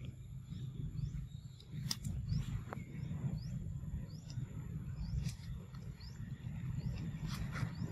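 Outdoor forest ambience under a steady low rumble. A short rising chirp repeats about twice a second over a steady high insect drone, with a few sharp clicks.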